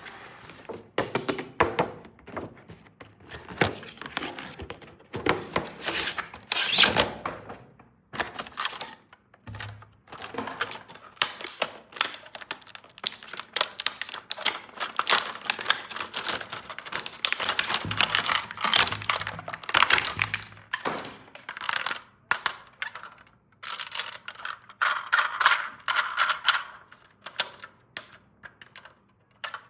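Small plastic toy pieces and packaging being handled: a dense, irregular run of clicks, taps and crinkles, with a few short pauses.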